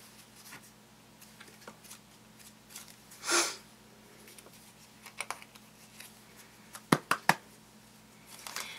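Handling of plastic Play-Doh playset pieces: scattered sharp clicks, a short rustle about three seconds in, and a quick run of three clicks near the end.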